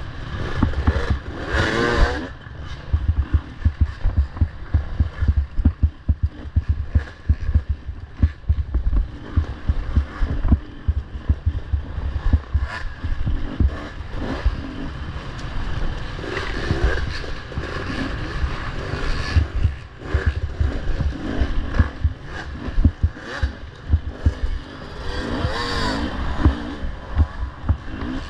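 Dirt bike engines revving up and down through the throttle, loudest in three rising-and-falling sweeps near the start, about midway and near the end, over constant low thumping and knocks of wind and jolts on the microphone.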